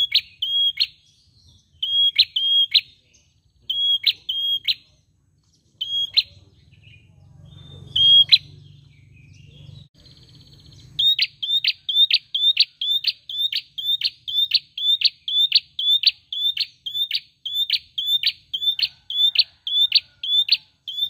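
Caged prenjak singing: short, sharp chip notes, at first in pairs and small groups with pauses, then from about eleven seconds in an unbroken, even run of about two notes a second.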